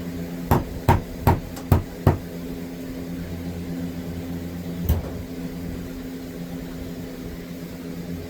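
Five sharp knocks in quick succession, about two and a half a second, then one more single knock a few seconds later, over a steady low hum.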